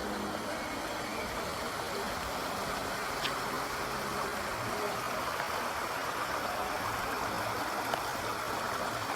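Steady rushing of rainwater flowing over a street after heavy rain.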